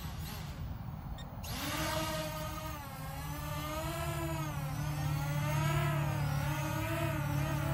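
Holy Stone HS175D quadcopter's motors and propellers starting suddenly about a second and a half in, then whining as the drone lifts off and hovers, the pitch wavering up and down.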